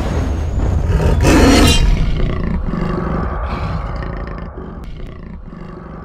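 A large creature's roar from a film soundtrack over a deep rumble. It is loudest about a second and a half in, then slowly dies away.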